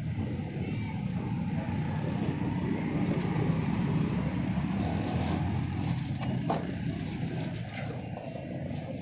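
Steady low rumble of street traffic, with a few light clicks and knocks in the middle.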